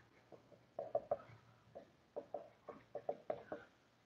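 Dry-erase marker writing on a whiteboard: a quick, irregular string of faint short strokes and squeaks as the words are written out.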